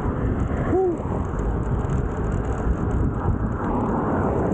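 Wind buffeting the microphone of a camera riding on a road bicycle at speed: a steady low rumble.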